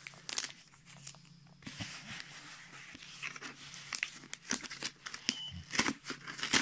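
A paper label being peeled and torn off a cardboard mailer, fingernails scratching and picking at the torn card surface: a scatter of short rips and scrapes, busiest in the last two seconds.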